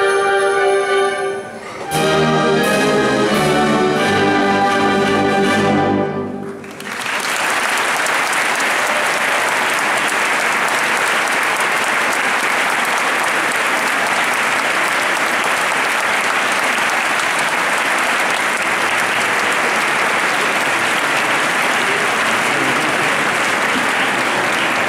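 A brass-heavy wind band ends a piece with a held chord and then several loud closing chords. About six and a half seconds in, the audience breaks into steady applause that goes on to the end.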